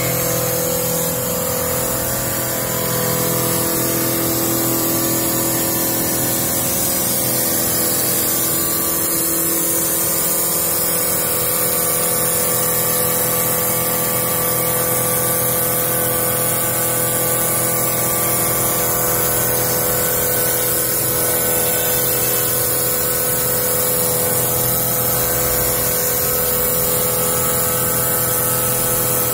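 Three-axis CNC wood turning lathe running, its rough and finish cutters turning a spinning wooden blank. A steady machine hum with several held tones, under a constant hiss.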